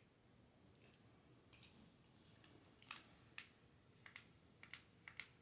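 Near silence broken by faint, sharp clicks, a handful of them, coming closer together toward the end, as small plastic parts of the toy RC car and its remote are handled.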